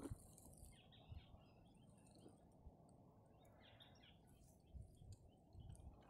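Near silence: faint outdoor quiet with a few soft low thumps and light rustles, as of a phone being handled while walking through grass.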